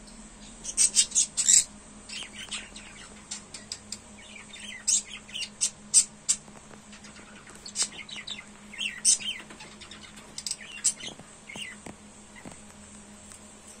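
Lovebirds calling with short, shrill chirps: a quick run of about six about a second in, then single calls and small groups scattered through the rest.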